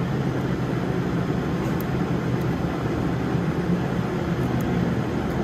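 Steady mechanical hum and rumble of background machinery, with a few faint light clicks over it.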